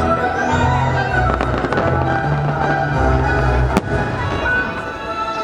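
Fireworks bursting and crackling over the show's soundtrack music played through the park's loudspeakers, with one sharp bang a little under four seconds in.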